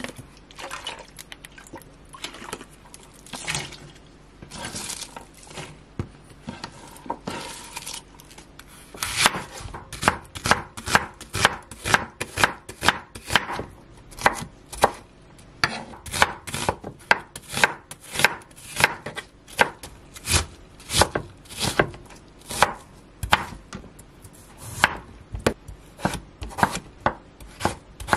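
Broad-bladed kitchen knife chopping onion, then potato, on a wooden cutting board. After softer, scattered handling sounds at first, the blade strikes the board in sharp, even knocks about two a second from around nine seconds in.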